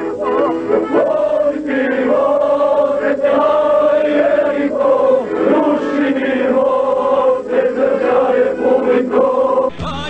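A group of men singing a war song together in unison, with long held, wavering notes. Just before the end it changes abruptly to a different song sung by a solo male voice.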